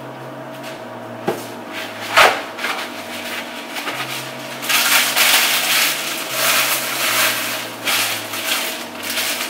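Plastic packaging crinkling and rustling as it is handled, thickest in the second half. A light click comes a little after one second, and a sharper knock just after two seconds.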